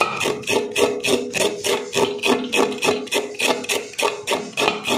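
Kitchen knife rapidly scraping the ridged skin off a bitter gourd (karela), in even strokes about six a second, over steady background music.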